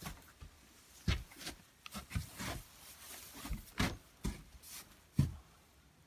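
Irregular thumps and rustling of square hay bales being handled and moved, about nine knocks over the few seconds, the loudest about five seconds in.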